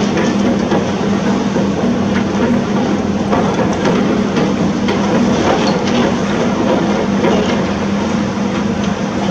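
Diesel engine of heavy construction machinery running steadily with a constant hum, a few faint knocks and clanks scattered over it.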